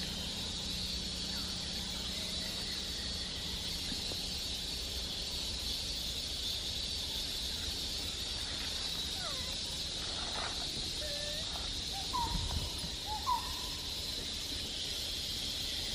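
Forest ambience: a steady high-pitched drone, with short chirping calls that glide up and down starting a little past halfway, and a couple of low thumps near the end.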